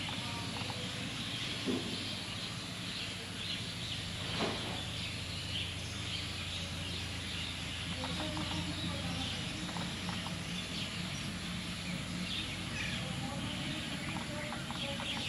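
Rural outdoor ambience: birds and insects chirping steadily over a low steady hum, with a couple of faint knocks in the first few seconds.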